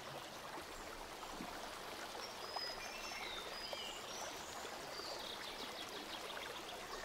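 Steady low background hiss, with a few faint, short, high chirps around the middle and a couple of faint ticks.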